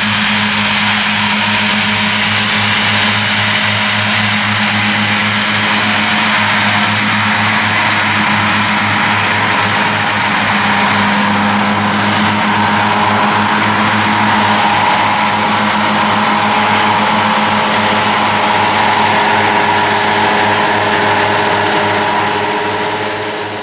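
Claas Cougar 1400 self-propelled mower running at steady working revs while mowing grass, its engine and spinning mower units making a dense, even din. A whine strengthens about halfway through as the machine passes close, and the sound fades out near the end.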